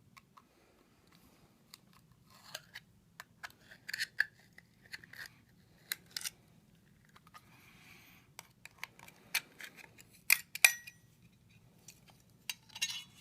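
Small metal tools clicking, scraping and tapping against the metal casing of an iPod's miniature hard drive as it is pried apart: scattered sharp clicks and scrapes, with a brief metallic ring about ten seconds in and louder clicks near the end.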